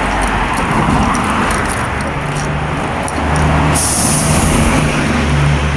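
Street traffic: a large vehicle's engine running with a low steady hum, and a sudden hiss of air a little past the middle that fades over a second or so.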